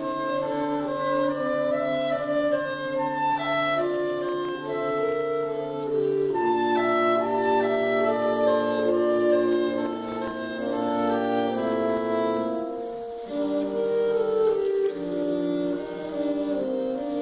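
Saxophone quartet playing live, several saxophones in harmony. A low baritone saxophone note is held under moving upper parts, steps down about six seconds in, and drops out briefly near thirteen seconds before the parts move on together.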